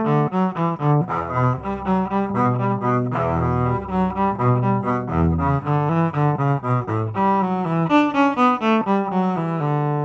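Yamaha SVC-210 silent electric cello bowed through its direct output with no onboard reverb, giving a dry, plain electric cello tone. It plays a quick run of short notes and settles on a held low note near the end.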